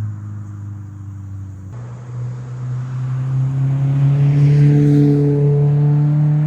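2020 Subaru BRZ's flat-four engine running through a freshly fitted Invidia N1 cat-back exhaust, a steady exhaust drone. The sound changes abruptly about two seconds in, then rises slowly in pitch and grows louder as the car pulls.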